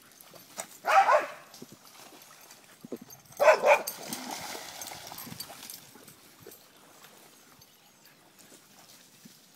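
Dog barking: one bark about a second in, then a quick run of two or three barks a little before the middle.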